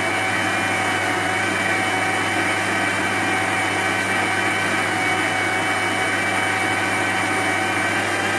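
Electric mixer-grinder motor running at a steady speed, blending a mango mixture in its jar with an even hum.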